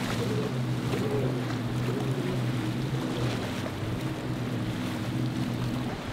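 A jet ski's engine drones at a steady pitch over the rush of churned water and wind noise on the microphone.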